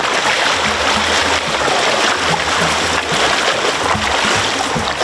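Shallow rocky stream running, with the splashing of legs wading through the water.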